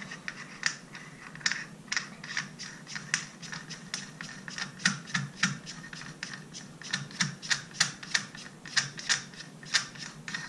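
Small irregular metallic clicks and light scraping as a steel locking nut is fitted and spun onto the threaded gas piston assembly of a Panzer AR12 Pro shotgun by hand.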